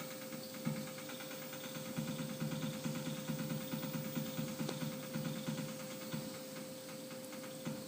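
CNC mill's Z axis being jogged down in small steps to zero a Haimer 3D edge sensor: a steady machine hum, with a quick run of regular pulses from about two seconds in to about six seconds in.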